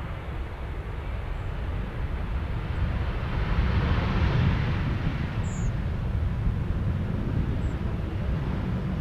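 Boeing 777-200ER's twin GE90 jet engines on landing: a broad rumble and roar that swells to its loudest about four seconds in, then holds a little lower.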